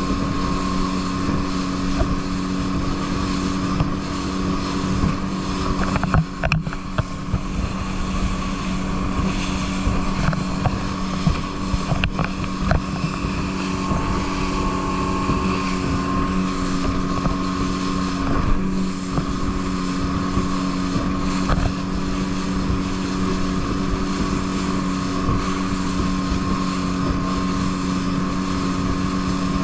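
Rigid inflatable boat's engine running steadily at speed, a constant hum under wind rushing over the microphone, with a few short knocks about six, twelve and eighteen seconds in.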